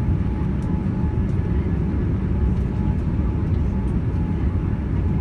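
Steady low rumble inside a Boeing 787-9's passenger cabin in flight: engine and airflow noise with a faint steady hum and a few light ticks.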